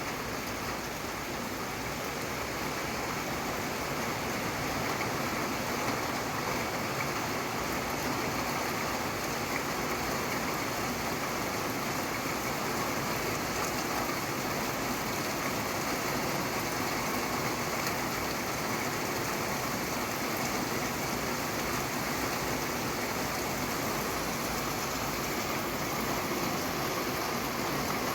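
Steady rainfall, an even, unbroken hiss of falling rain.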